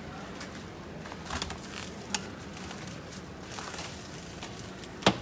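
A few sharp clicks and knocks over faint, steady background noise. The loudest knock comes near the end.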